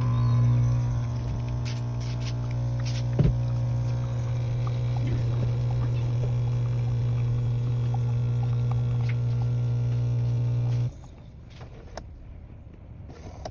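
Beko coffee machine running with a loud steady hum for about eleven seconds, then cutting off suddenly, with a single knock about three seconds in.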